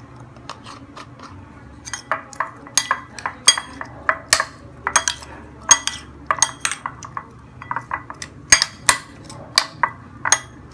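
Metal spoon clinking against a glass bowl while stirring cubed pork in a soy sauce and garlic marinade. The clinks are sharp and irregular, a few a second, sparse at first and louder and busier from about two seconds in.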